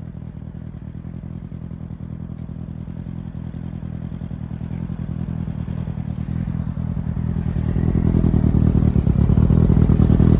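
Kawasaki ZX-9R's inline-four engine idling steadily, growing louder over the last few seconds.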